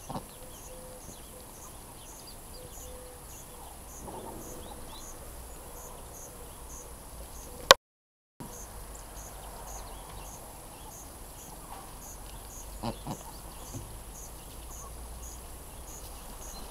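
Muscovy ducks feeding on plums on grass: scattered soft clicks and pecks of bills at the fruit, over a faint, regular high chirping about two and a half times a second. Near the middle a sharp click, then half a second of dead silence where the recording breaks.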